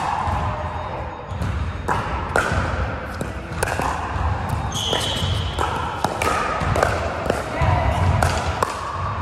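Pickleball rally: paddles hitting a hard plastic pickleball back and forth, a string of sharp pops. Players' voices run underneath, and a brief high squeak comes about five seconds in.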